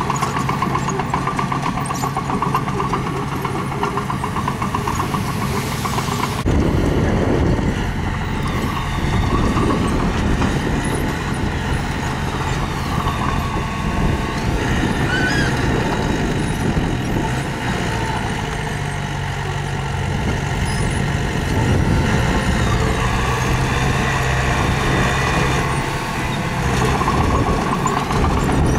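Engine of heavy earthmoving machinery running steadily under load. About six seconds in the sound turns abruptly louder and rougher, with a heavier rumble.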